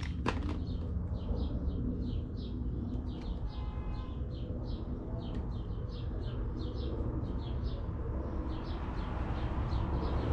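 A small bird chirping over and over in the background, short high chirps two to three times a second, over a steady low hum.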